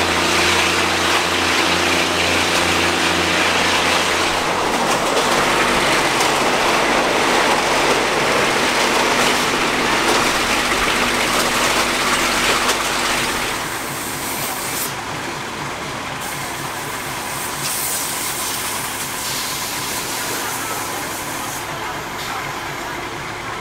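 Diesel railcar running along the line, heard from inside a carriage with open windows: a steady engine drone over rushing wheel and wind noise. The engine note shifts about four seconds in, then drops away about thirteen seconds in, and everything grows quieter as the train eases off toward a stop.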